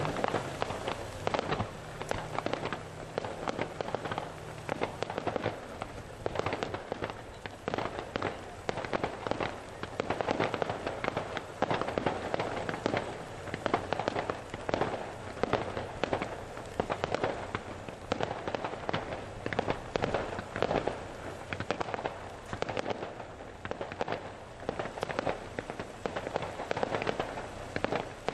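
A rapid-fire aerial fireworks display: many shells launching and bursting in quick succession, giving a dense, unbroken run of sharp bangs and crackles.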